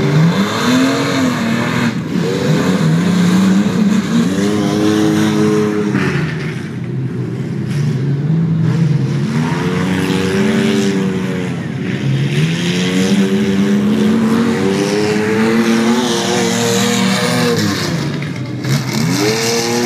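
Engine of a small race vehicle running hard on a dirt track, its pitch climbing, holding and dropping back every few seconds as it accelerates and eases off.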